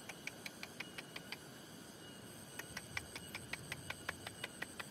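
An insect calling: a rapid, even series of short clicks, about five a second, that stops for about a second midway and then resumes, over a faint steady high-pitched hum.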